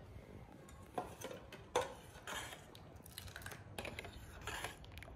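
Steel ladle stirring thick kheer in a steel pot, scraping and clinking against the pot's sides and bottom about five times as condensed milk is mixed in.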